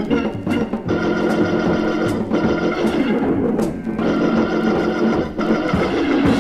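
Jazz organ-and-drums instrumental: a Hammond organ plays short chord stabs, then holds long sustained chords from about a second in, over a drum kit with occasional cymbal and drum hits.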